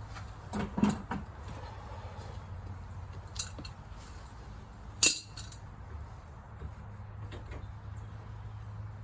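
A steady low hum, with a few knocks and clinks: two close together about a second in and one sharp, louder clink about five seconds in.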